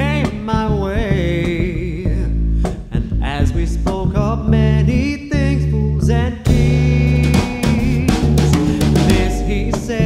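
Small jazz group playing: plucked upright double bass, drum kit and cymbals, with a male voice carrying the melody.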